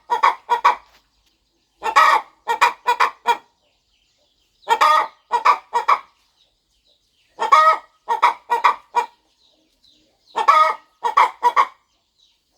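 Broody hen clucking in repeated phrases, each one longer cluck followed by three quick short ones, about every three seconds.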